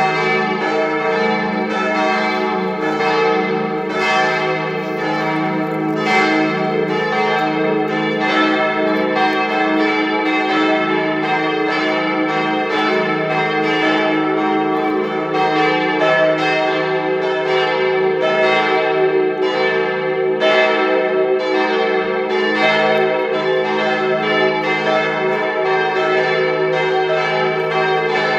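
Several church bells swinging and ringing together in a partial peal (only some of the tower's bells), their strikes overlapping in a continuous, uneven stream of about two to three a second.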